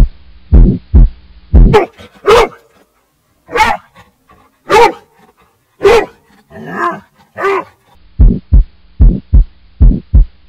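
A heartbeat sound effect of paired low beats, about one pair a second, gives way about two seconds in to six or seven loud barks from a rubble-search rescue dog, the indication bark by which such a dog signals that it has found a buried person. Near the end the heartbeat comes back, quicker.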